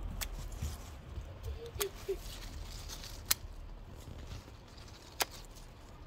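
Scissors snipping mint stems: about four sharp clicks spread a second or so apart, over a low steady background rumble.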